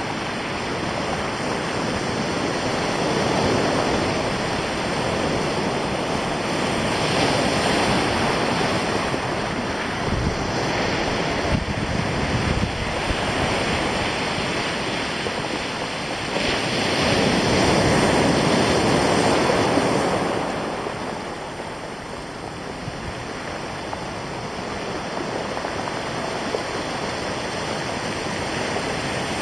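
Surf breaking on a stony beach and rocks: a steady wash that swells and eases as the waves come in, loudest a little past the middle.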